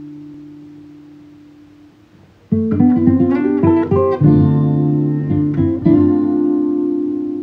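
Guitar music: a held chord fades out, then about two and a half seconds in a quick run of plucked notes starts, followed by strummed chords that ring on.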